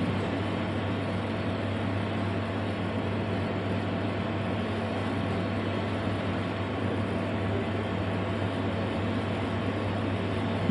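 Steady low hum with an even hiss: the hall's background noise through a live microphone, with no distinct events.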